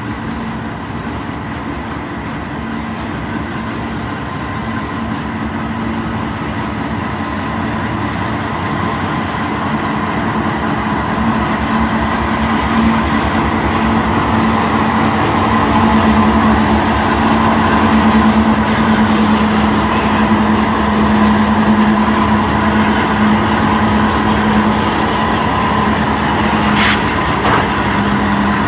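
Diesel locomotives passing close, their engines running with a steady drone over the rapid clatter of wheels on rail. The sound grows louder as the units come alongside, then holds. A brief high squeak comes near the end.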